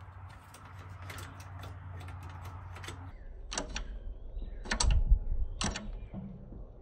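Metal linkage clacking on a 1954 Allis-Chalmers WD45 as the newly installed starter control rod is worked against the starter switch lever. Three sharp clacks come about a second apart, the middle one loudest with a low thump, after a few seconds of low steady hum with light ticks.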